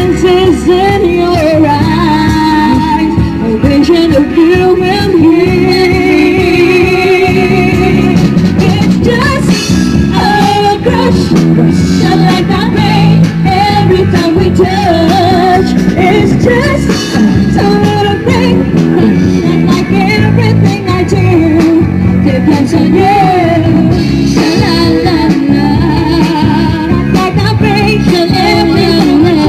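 A band playing a pop-rock song, with a melodic lead line over a steady beat.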